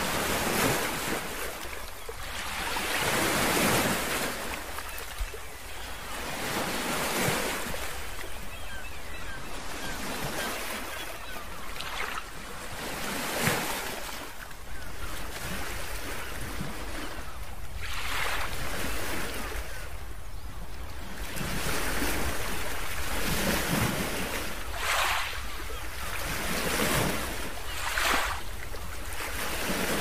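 Ocean surf: waves washing in and drawing back, the rush of water swelling and fading every few seconds.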